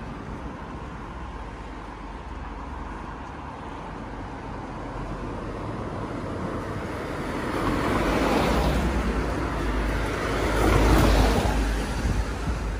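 Road traffic: cars passing close by on a town street. There are two passes, about eight and about eleven seconds in, each rising and falling, the second the louder.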